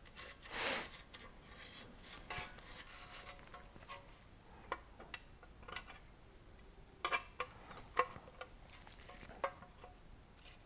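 Faint scratching of a Sharpie marker drawn across steel sheet, marking a cut line around a patch. It is followed by a scattering of light taps and clinks as the 16-gauge sheet-metal pieces are handled.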